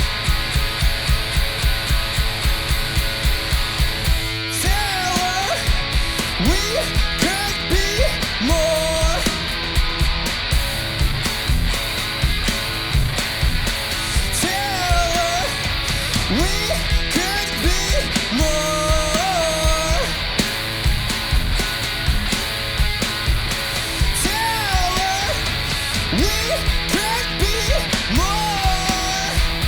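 A punk-rock duo playing live, with electric guitar and drums. Over the steady, loud drumming, a melodic line of bending notes comes in about four seconds in and keeps recurring.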